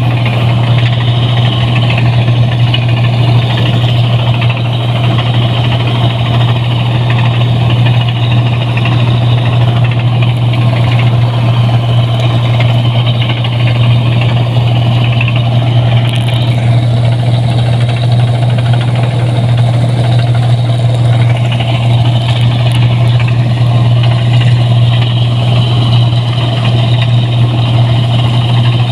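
Rice combine harvester running steadily: a loud, constant low engine hum with dense machine noise over it.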